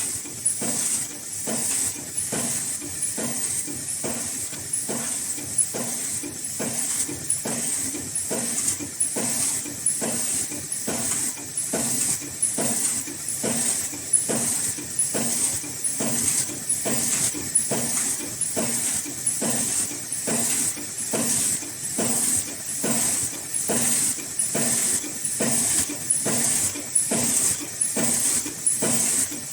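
Automatic N95 mask production machine running at speed, a regular mechanical beat of about one and a half strokes a second over a steady high hiss.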